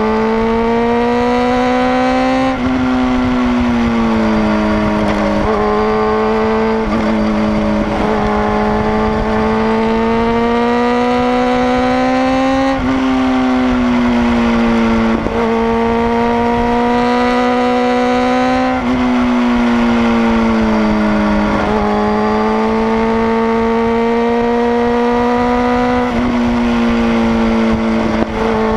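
Sport motorcycle engine running hard at road speed, its revs climbing steadily and then dropping sharply again and again through the curves, over a steady rush of wind.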